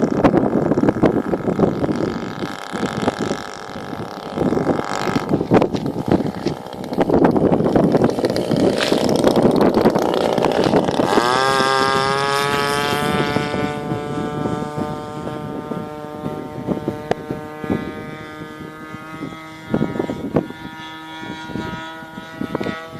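For about the first ten seconds, rough gusty rumbling noise. Then the small fuel-burning engine of a radio-control model airplane comes in as a clear buzzing note that rises quickly in pitch and holds steady.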